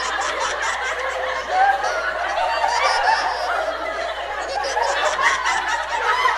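A crowd of voices laughing together, like an added laugh track, steady and unbroken.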